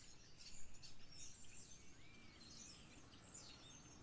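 Faint birds chirping and singing, with scattered high, short calls.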